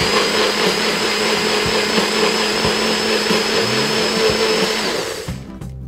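NutriBullet personal blender running, blending a cup of fruit with a steady motor noise and a thin high whine. It winds down and stops about five seconds in.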